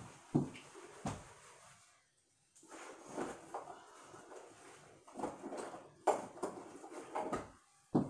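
Off-camera knocks and clatter of someone moving about a small room and fetching things, with a brief lull about two seconds in and several sharp knocks in the last three seconds.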